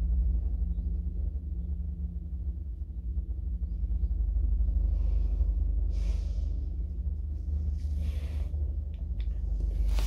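1965 Fiam traction elevator running: a steady low rumble and hum, with brief hissy rustles in the second half and a couple of light clicks near the end.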